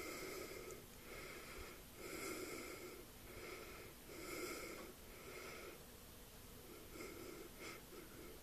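A drunk man asleep, breathing heavily with a wheezy rasp, one breath sound about every second, quiet and regular.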